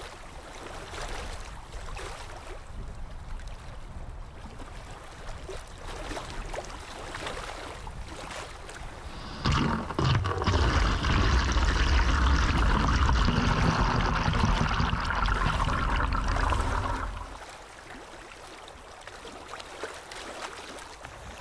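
Seawater poured from a bucket into a tank: a loud splashing rush that starts about halfway through, runs for about eight seconds and stops fairly quickly. Before and after it there is only a low, steady hiss.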